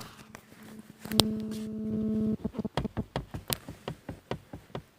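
A steady buzzing tone lasting about a second, then rapid regular knocking, about four to five knocks a second, from a Renault Scenic 3 front seat being shaken on its rails. The rails have play that the owner means to take up with grease.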